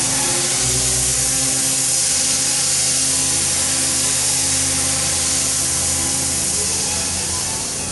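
ACER VMC 2240XL vertical machining center cutting, a steady loud hiss of coolant spray and cutting noise over steady machine hum.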